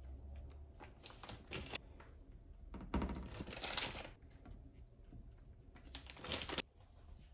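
Soft rustling and clicking handling noises in three short bursts, the longest and loudest in the middle, as sausages are set by hand into a hot-pot dish of raw vegetables.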